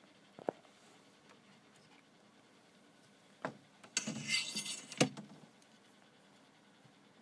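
Handling noises as a plastic food tub of greens and insects is brought into a reptile tank: a knock, a short scraping rustle and then a sharp knock near the middle, with quiet between.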